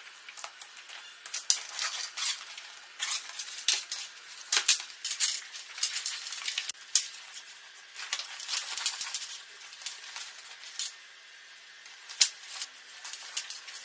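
Oxford-nylon tactical backpack being handled and stuffed with folded clothes: irregular fabric rustling, with sharp clicks now and then.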